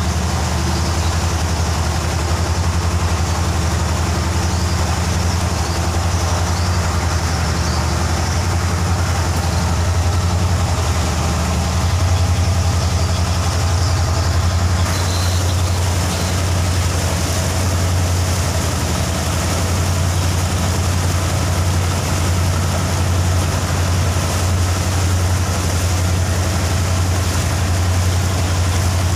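Inboard diesel engine of a wooden river taxi boat running steadily under way, a loud, even, deep drone. About halfway through, a higher hiss of water and wind grows louder over it.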